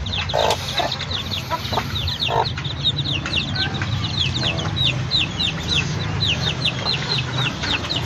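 Domestic chicks peeping nonstop, a rapid run of short, high, downward-sliding peeps, several a second. In the first couple of seconds a few lower clucks come from the native mother hen with her brood.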